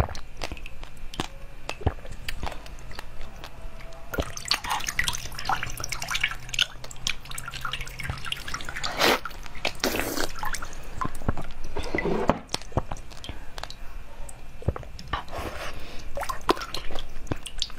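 Wet eating sounds from a soft, translucent jelly-like food: many small wet clicks, smacks and squishes of the mouth on it. Near the end it is pulled apart by hand.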